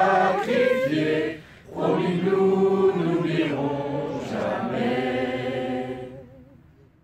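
A group of voices singing together: a sung phrase, a brief break about a second and a half in, then a long wavering held note that fades out near the end.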